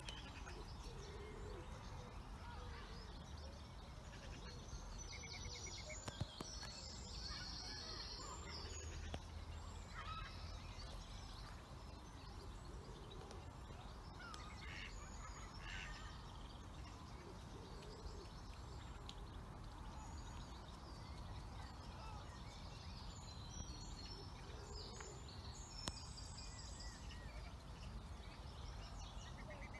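Outdoor park ambience: a faint, steady low rumble, with small birds chirping and singing in short high bursts a few seconds in and again near the end.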